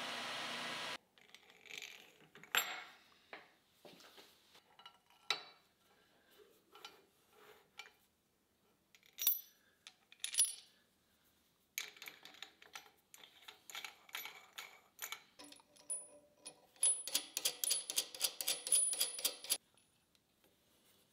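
A steady machine running sound cuts off about a second in. Then come scattered light metal clicks and knocks as a steel angle plate and hardware are handled on a milling machine table. Near the end there is a denser run of quick metallic ticking as nuts are run onto a threaded rod.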